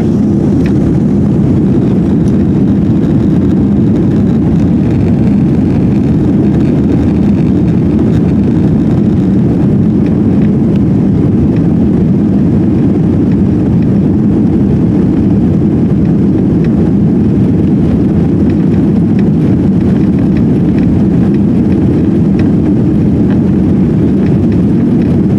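Cabin noise of an Airbus A340-300 on its takeoff roll: its four CFM56 jet engines at takeoff thrust together with the rumble of the wheels on the runway, a loud, steady, low noise.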